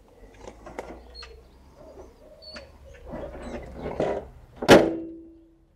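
VW T4 van bonnet being lowered, with small clicks and rustles, then latched shut with one sharp metal clunk near the end that rings briefly and fades.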